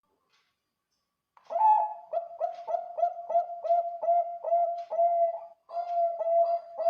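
Bangkok-type zebra dove (perkutut) singing: after about a second and a half of silence, a long run of short, rapid coos at one steady pitch, about three a second, with a brief break about two-thirds of the way through.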